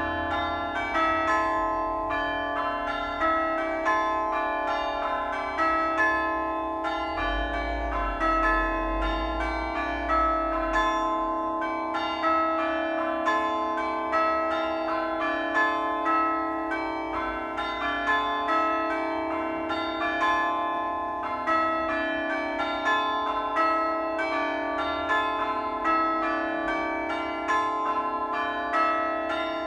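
Church bells ringing, many bells struck one after another in a quick, steady, unbroken rhythm, each stroke ringing on into the next. A low rumble runs underneath for a few seconds starting about seven seconds in.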